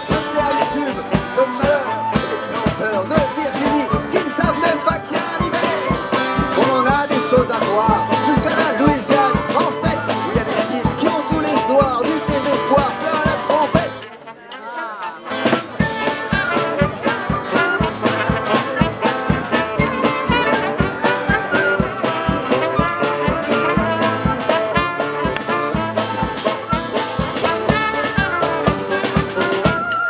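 Live acoustic street band playing an instrumental passage: flutes, saxophones, sousaphone and acoustic guitars with light drums. The music breaks off briefly about halfway through, then picks up again.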